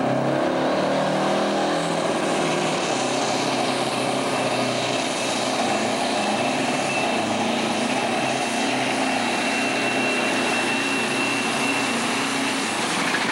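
A Super Stock pulling tractor's turbocharged diesel engine running flat out as it drags the weight sled down the track. The roar is loud and steady, its pitch steps up early on, and a thin high whistle holds through the middle.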